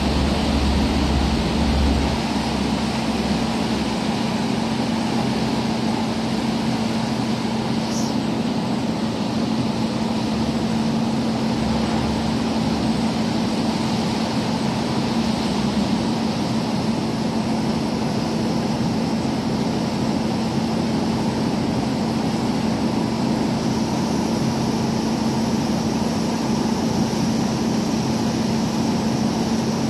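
Steady marine engine drone with a constant low hum over a broad rush of water churned along the hulls of a ship under way and a pilot boat running alongside. There is a heavier low rumble in the first couple of seconds.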